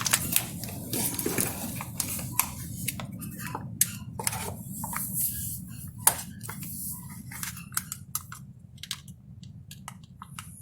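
Irregular small clicks, knocks and handling noises, some sharp, over a steady low hum.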